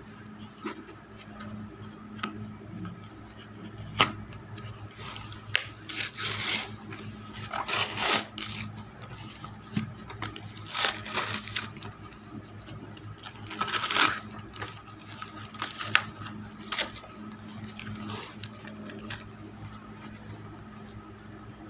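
Brown paper and cardboard parcel wrapping being torn open by hand: several bursts of tearing and crinkling, with a few sharp clicks, over a steady low hum.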